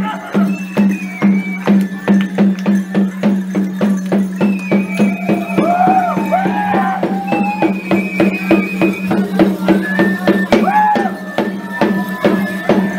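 Traditional folk dance music: a high piping melody with held and stepping notes over a fast, even beat of sharp percussion strikes and a steady low drone.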